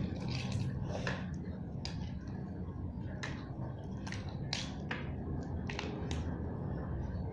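Small plastic Lego pieces clicking as minifigure parts are snapped together and handled: about a dozen sharp, irregular clicks over a steady low hum.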